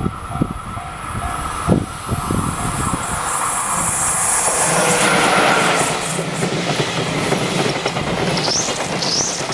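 Japanese level-crossing warning bell ringing in even dings, about three a second, soon drowned by a train passing over the crossing: rising rumble and rush with the clack of wheels over rail joints. A few short, high, rising squeals come near the end.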